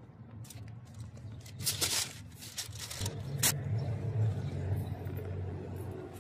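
A car engine running with a steady low hum that grows from about three seconds in. Over it come a few short scrapes of a cleaver on a plastic cutting board, around two seconds in and again a little later.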